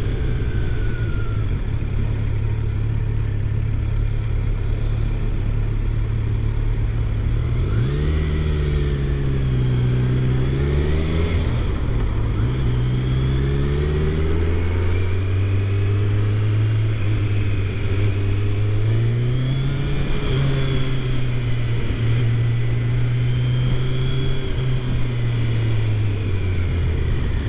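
Kawasaki Z900's inline-four engine running while the motorcycle is ridden at low speed. The note holds steady for the first several seconds, then rises and falls repeatedly as the throttle is opened and closed.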